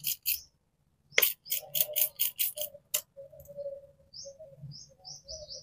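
Hand trigger spray bottle squirting water onto a scooter tyre in a quick series of short hissing squirts through the first three seconds, a leak check for escaping air. Near the end a bird chirps several times.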